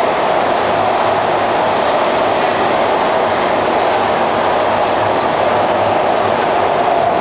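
Kawasaki C151 electric metro train heard from inside the car, running through a tunnel: a steady, loud rumble of wheels on rail and running gear.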